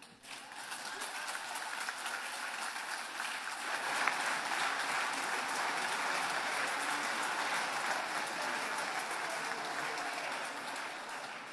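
Large audience applauding, swelling over the first few seconds and tapering off near the end.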